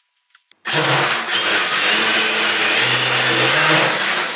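D3542 1450 kV brushless outrunner motor on a 3S LiPo driving an RC jetboat's jet pump hard while the boat is held in place in water, churning water loudly under a steady high motor whine. It starts abruptly about three quarters of a second in and eases off near the end.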